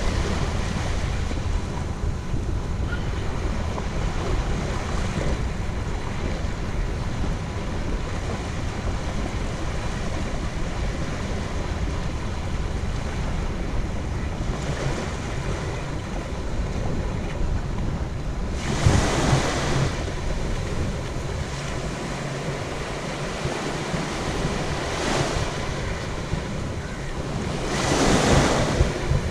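Surf washing onto the beach with wind rumbling on the microphone. Two louder waves wash in, one about two-thirds of the way through and one near the end.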